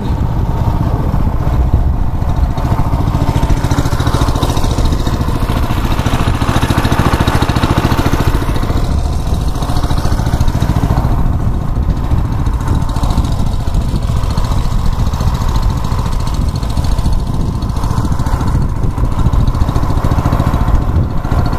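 Small boat's motor running steadily at cruising speed, a loud even drone with no break.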